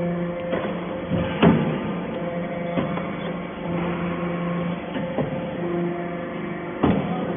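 Hydraulic metal chips baling press running with a steady hum, cut by two sharp metallic knocks, one about a second and a half in and one near the end.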